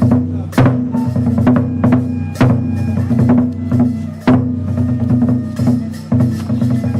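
Kagura music for a shrine dance, with drums: light, quick drum taps over steady low tones, and a heavier beat roughly every two seconds.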